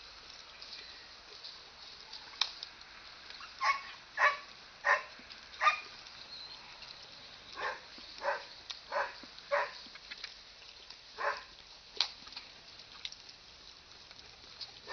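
A dog barking in short, evenly spaced barks: a run of four, a pause, another run of four, then a single bark, with a few sharp clicks in between.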